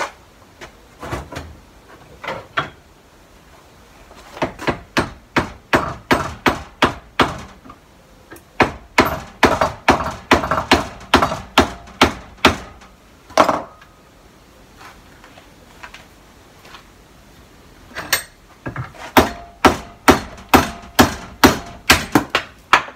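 Hammer blows on a glued melamine-faced board test piece clamped in a bench vise, driving the glue joint apart in shear. The blows come in quick runs of about three a second, with a lull of a few seconds before a last run.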